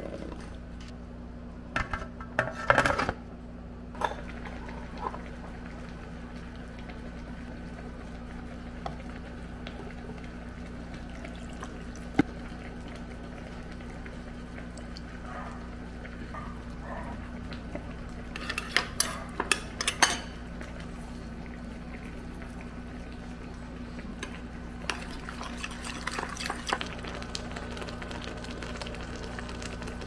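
Metal spoon and utensils clinking and clattering against ceramic dishes and a pot in three short bursts, over a steady low hum.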